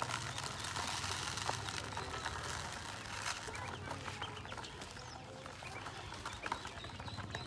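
A bowlful of ducklings peeping, many short high chirps overlapping, with small splashes and bill clicks as they drink and dabble in shallow water in a plastic basin.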